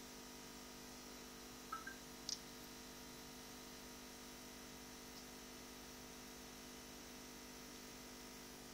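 Faint steady hum, near room tone, broken about two seconds in by two short high blips and a sharp tick.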